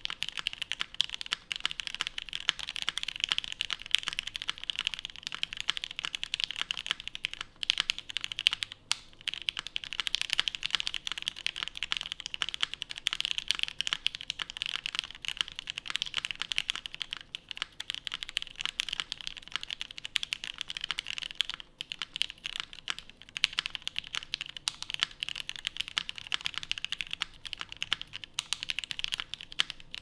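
Steady, fast typing on a DN Works Ryujin custom mechanical keyboard with an aluminum plate, vintage Cherry MX Black linear switches lubed with 205g0, and GMK keycaps: a dense run of keystroke clacks with a few brief pauses.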